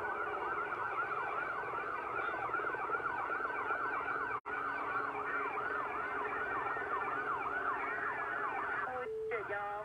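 Police sirens yelping, a fast rising-and-falling wail about three or four times a second, from a recording of the scene. The audio drops out for an instant just under halfway, and a steadier, lower siren tone joins near the end.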